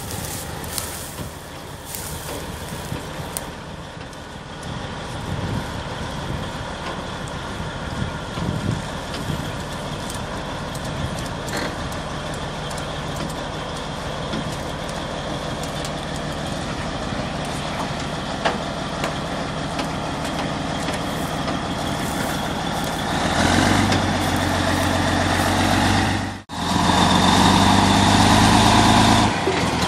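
M88 armoured recovery vehicle's air-cooled V12 diesel engine running as the tracked vehicle drives onto a rail flatcar. It grows louder about three quarters of the way through, cuts out briefly, then comes back loud.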